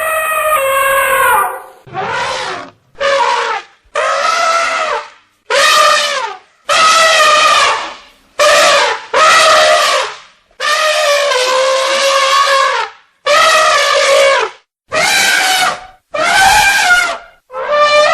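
Elephant trumpeting: about a dozen loud, brassy calls in quick succession, each around a second long, with short breaks between.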